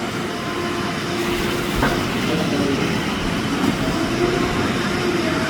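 Loud, steady rushing of water falling at a waterfall.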